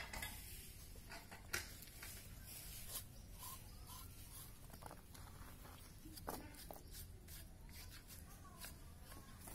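Quiet knife work on a skinned goat carcass: a few sharp clicks and soft handling noises over a steady low rumble.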